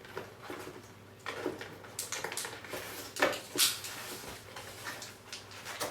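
Cardboard retail box being handled and opened, with irregular scrapes, taps and rustles of packaging, loudest a little past the middle.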